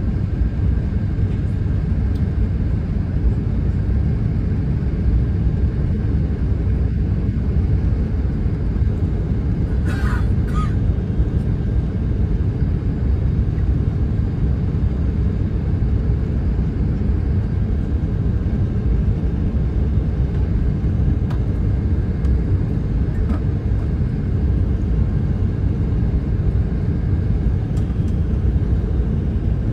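Steady low rumble of an Airbus A380's cabin on approach to landing: engine noise and rushing air heard from a window seat, with a faint steady high tone over it and a brief short sound about ten seconds in.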